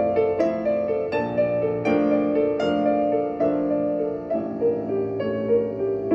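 Recorded song played back through Tannoy bookshelf loudspeakers: a slow instrumental intro led by piano, a steady run of single notes and chords with no singing.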